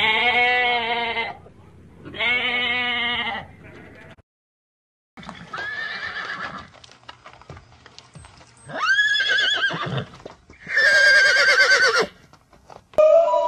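Two long, wavering goat bleats, then after a second of silence a horse whinnying three times, each call high and quavering.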